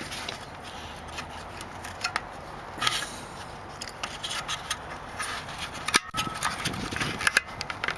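Handling noise from plastic headlight parts and bulbs: scattered clicks, rubbing and scraping, with one sharp knock about six seconds in.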